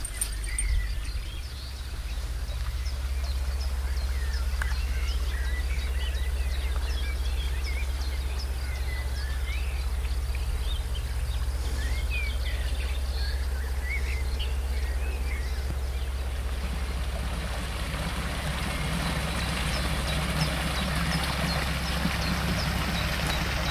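Birds chirping and calling over a steady low rumble. About two-thirds of the way through, the rushing of a shallow brook over stones comes up and carries to the end.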